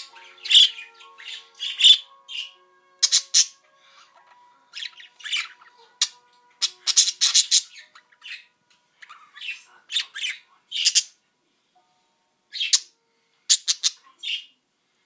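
Pet budgerigars giving short, sharp squawks and chirps in scattered bursts, several in quick succession.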